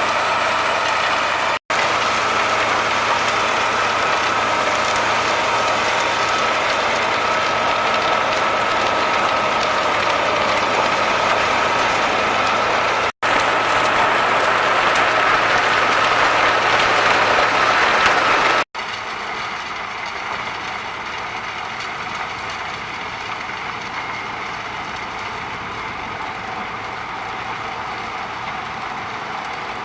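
Wood chipper running steadily: a loud mechanical grind with a high, steady whine. The sound cuts out for an instant twice, and after about nineteen seconds it changes to a quieter machine noise.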